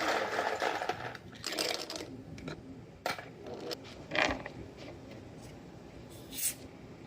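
A few separate brief scrapes and clicks of handling noise, the loudest about four seconds in.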